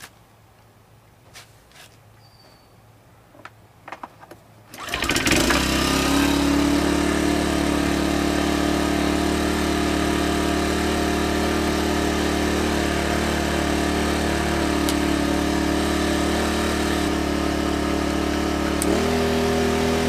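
Sportsman 1000-watt inverter generator's small engine starting about five seconds in, then running steadily. Near the end its pitch steps up slightly.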